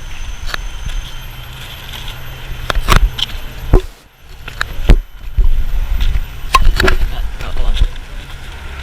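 Handling noise on a GoPro in its waterproof case: a low rumble of rubbing against the housing, with irregular knocks and clicks, briefly dropping out about four seconds in.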